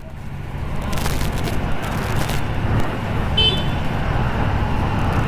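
MV Agusta F4's inline-four engine running at low revs as the motorcycle rolls away slowly, a steady low rumble that swells in over the first second or so. A brief high chirp sounds about three and a half seconds in.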